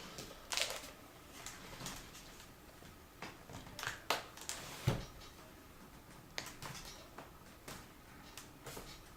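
Scattered small clicks and taps of hands and a small screwdriver working on a laptop's plastic screen bezel and its screws, with one duller knock about five seconds in.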